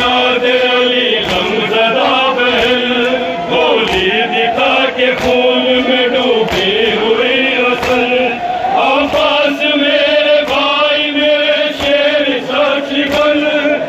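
Men chanting an Urdu nauha (mourning lament) in unison, led by a reciter on a microphone, the voices holding long drawn-out notes. A sharp slap keeps time about every second and a quarter.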